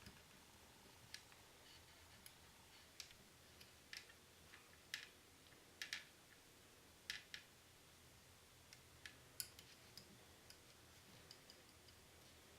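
Faint, irregular crackling clicks from a hot soldering gun heating a bullet connector's barrel with solder.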